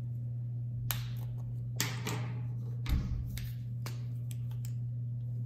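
POSCA paint markers and their caps being handled on a table: a few separate light clicks and taps, the loudest about three seconds in with a low thud, over a steady low hum.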